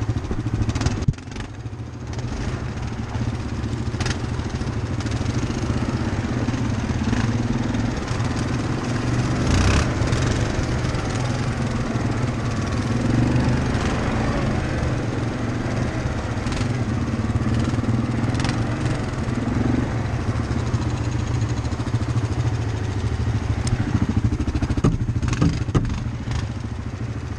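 ATV engine running at a steady, moderate throttle while riding a rough dirt trail, its pitch wavering a little with the throttle. A few short, sharp knocks come through it from the machine jolting over bumps.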